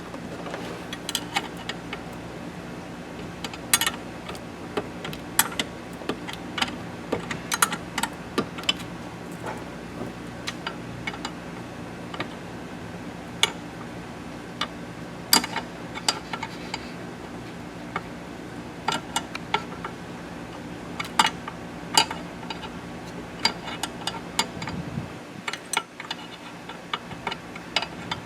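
Hand tools clicking and clinking on metal as the catch can's nut and bolts are tightened onto the stud, in irregular sharp ticks over a steady low hum.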